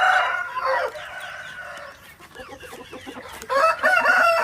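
Gamefowl roosters crowing and clucking: one loud call fades out about a second in, and another loud call starts about three and a half seconds in.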